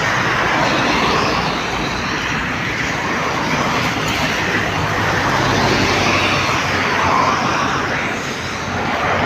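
Steady noise of heavy rain falling, mixed with road traffic noise.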